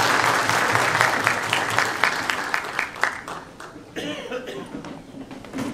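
Audience applauding in a hall, dying away about three seconds in, then a few quiet voices and coughs.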